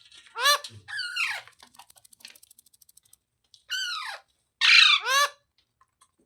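A parrot squawking: two loud, harsh, down-bending calls, then a run of rapid faint clicks, then three more squawks close together near the end.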